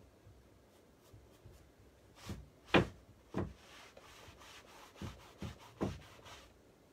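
A painting tool dragged and rubbed across a large stretched canvas, laying on paint: about six short scraping strokes, the loudest about three seconds in, with steadier rubbing between them.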